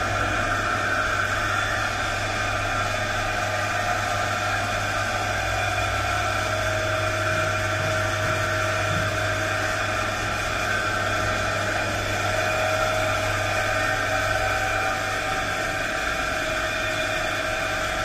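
Belt-driven pillar drill with a two-stage V-belt and stepped-pulley drive, running steadily with no load. Its electric motor hums and the belts and pulleys whirr evenly.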